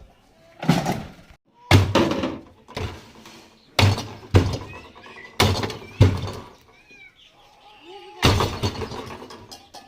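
A refrigerator being smashed apart: a series of heavy blows and crashes on its body, roughly one a second, with a short pause about two-thirds of the way through.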